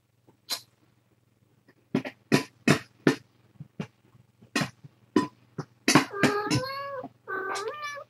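Kitten mewing: two drawn-out cries with a wavering pitch, one at about six seconds and one near the end. They follow a quick, irregular run of short, sharp clicking sounds.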